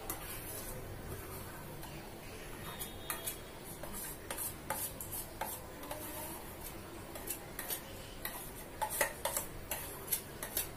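Metal spoon scraping and clinking against a steel bowl while thick semolina batter is scooped out onto a plate: a scatter of light clicks and taps, busier in the second half.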